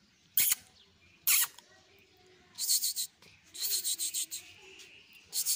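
A dog at close range: two sharp snapping sounds about a second apart, then three bursts of rapid, rasping pulses at roughly ten a second.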